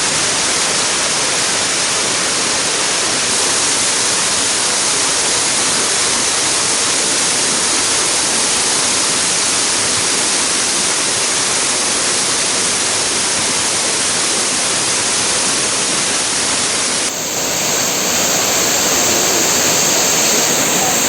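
Waterfall rushing steadily. About three-quarters of the way through the sound dips briefly, then carries on a little brighter.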